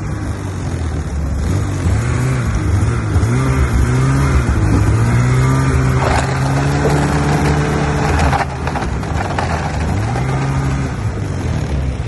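Snowmobile engine running at low speed, its pitch rising and falling as the throttle is eased on and off while the sled pulls up to a fuel pump.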